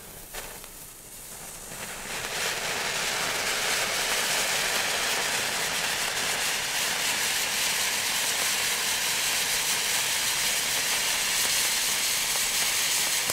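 Category F1 firework fountain spraying sparks with a steady hiss. The hiss builds up about two seconds in and then holds strong.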